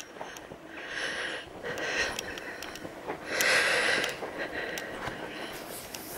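Soft breathing of a person walking, close to the microphone: a hissy breath about every second or so, the strongest about three and a half seconds in, with faint clicks between.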